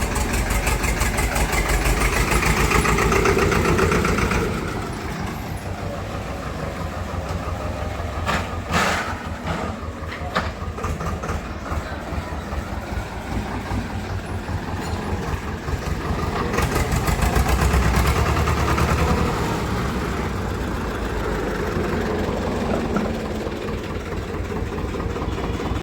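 Tractor's diesel engine running with a rapid even chugging, louder for the first few seconds and again about two thirds of the way through, settling back to a lower idle in between. A couple of sharp knocks come about a third of the way in.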